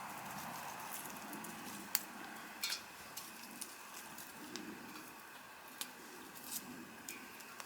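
Campfire crackling: a soft steady hiss with a few irregular sharp pops.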